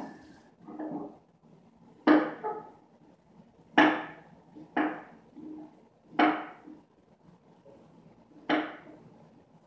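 A series of sharp knocks, about five of them, one to two seconds apart, each dying away quickly.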